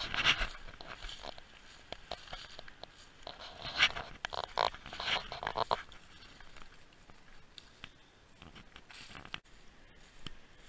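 Footsteps and brushing through dry fallen leaves and dead grass: irregular rustling and crunching, loudest at the start and around four and five seconds in, softer in the second half.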